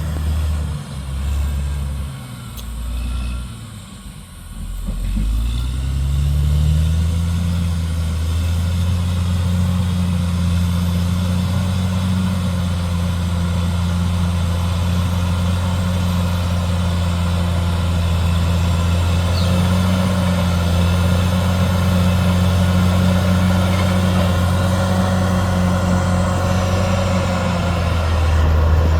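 Caterpillar D6R XL bulldozer's diesel engine falling to a lower speed and quieter over the first few seconds, then climbing at about five seconds to a steady working pitch that it holds.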